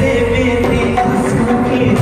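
Loud music with a singing voice, played over a stage sound system for dancing.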